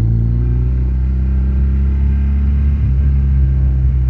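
Motorcycle engine running at a steady pitch, heard through a rider-worn microphone, with a slight change in engine note about three seconds in.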